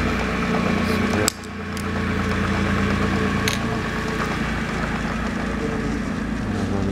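Spindle motor of an Exacto 942B vertical mill's head running with a steady hum. About a second in, a click and a sudden drop, then the hum builds back up over about a second as the spindle is switched to run the other direction.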